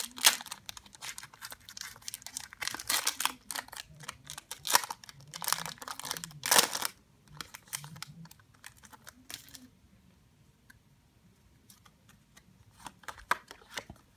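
Foil wrapper of a Pokémon booster pack crinkling and tearing as it is opened, a dense run of crackles for about seven seconds with a sharp rip near the start and another louder rustle later. After that the trading cards are handled with a few soft clicks and then near quiet.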